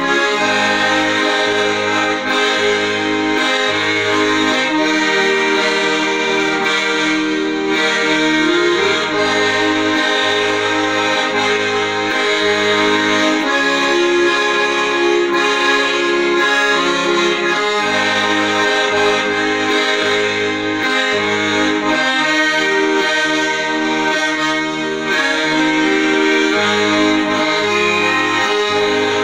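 Accordion playing a melody with sustained chords over a steady pulse of low bass notes.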